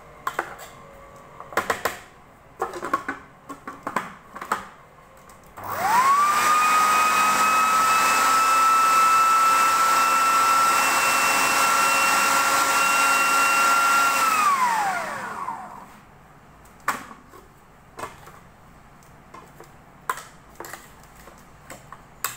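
Electric food processor grinding boiled chana dal: the motor spins up with a rising whine about six seconds in, runs steady for about eight seconds, then winds down with a falling pitch. Before and after, clattering knocks from the dal going into the jar and the jar and lid being handled.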